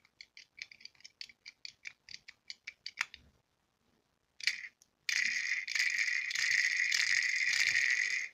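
Horse-and-carriage pencil sharpener being handled with its wheel spun: a quick run of light clicks, about eight a second, for the first three seconds. After a short pause comes a denser, louder rattle for the last three seconds.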